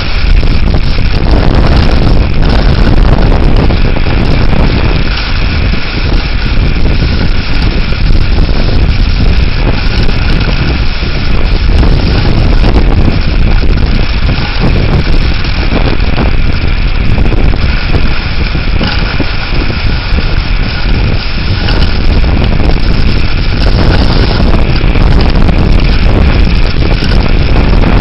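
Severe thunderstorm winds blowing hard against the microphone: loud, continuous wind noise, heaviest in the low rumble, with no let-up.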